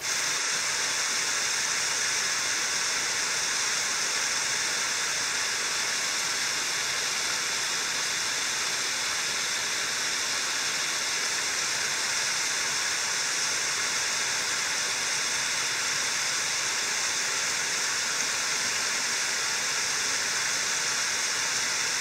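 Creek water cascading, a steady, even rush with no change in level.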